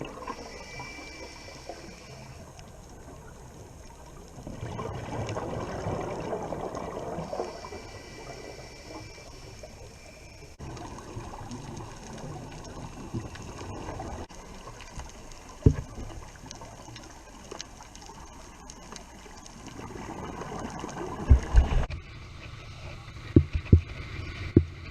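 Muffled water sounds with two long swells of bubbling and gurgling, and a few sharp knocks, several of them bunched together near the end.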